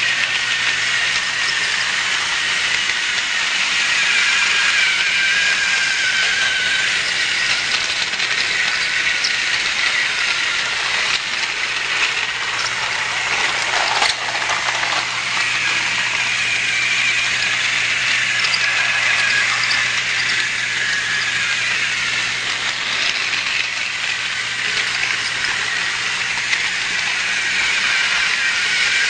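Battery-powered TrackMaster toy train running on plastic track: a steady whir and rattle from its small geared motor and wheels, with the motor's pitch wavering slightly. A single sharp click about halfway through.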